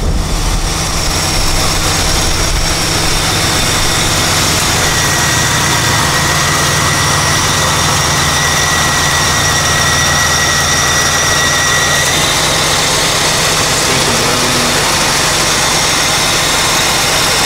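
1983 Buick Electra Estate's 5-liter V8 idling steadily, heard close up in the open engine bay, with a thin, steady high whine over the low engine hum.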